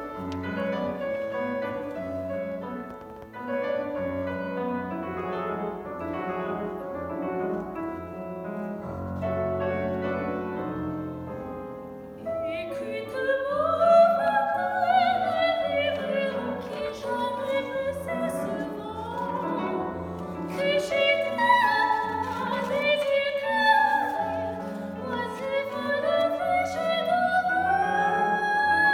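A grand piano plays alone for about the first twelve seconds, then a woman's classical singing voice comes in over the piano accompaniment, sung with a wide vibrato.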